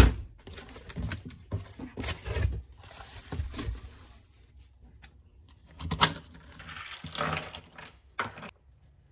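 Packaging being handled: irregular bursts of rustling and crinkling from the wrapping and box around a swivel-seat base plate, with a louder burst about six seconds in.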